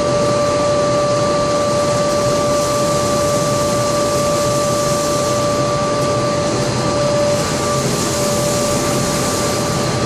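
Steady dense noise of a running aluminium-chip melting furnace and its fans and motors, with a steady whine over it that eases slightly about seven seconds in.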